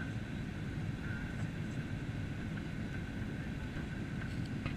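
Steady cabin noise of a Boeing 737-800 in flight, heard inside the cabin: an even rumble of its CFM56 jet engines and the airflow over the fuselage, with a thin steady whine above it.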